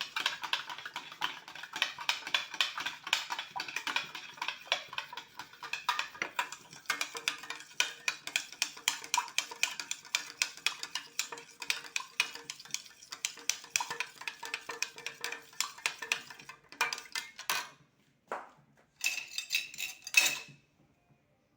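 Salad dressing being mixed with a utensil in a small container, a fast, steady run of clinks against its sides. The clinking stops a few seconds before the end, then comes back in a short last flurry.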